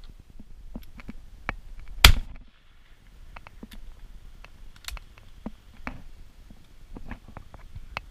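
A single shotgun shot about two seconds in, loud and sharp with a brief tail, amid scattered light clicks and rustles.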